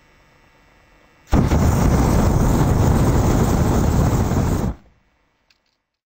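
Production-logo sound effect: a loud blast of noise starts suddenly about a second in, holds steady for about three and a half seconds, then drops away quickly.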